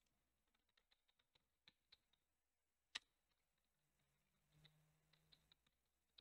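Faint typing on a computer keyboard: a quick run of light key clicks, one sharper click about three seconds in, then a few more scattered taps.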